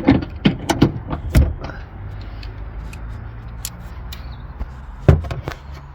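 Clicks and knocks of a hand tool and loosened nuts on a car's rear seat belt anchor bolts: a quick run of sharp knocks, then a low steady hum, then one loud knock about five seconds in.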